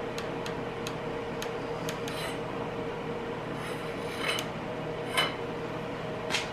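Hand tools working on the crank pulley bolt: a few light metallic clicks, then three short scraping rasps of metal on metal, over a steady hum.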